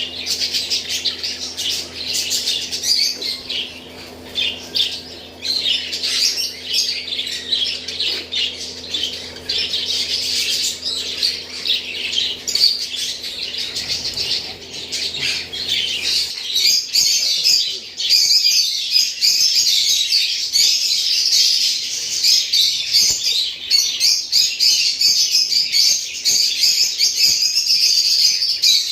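Many caged parrots chirping and squawking continuously in a dense chorus. A low steady hum runs underneath and cuts off suddenly a little over halfway through.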